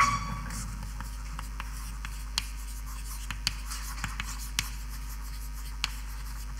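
Writing on a board: one sharp knock at the start, then scattered short taps and scratches as the writing goes on, over a steady low mains hum.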